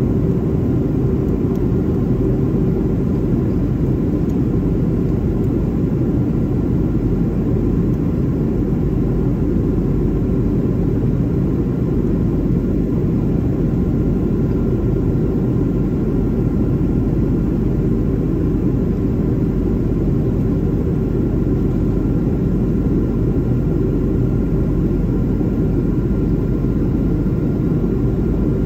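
Jet airliner cabin noise heard from a window seat beside the wing engine: a loud, steady rumble of the turbofan engine and airflow, with faint constant whines above it.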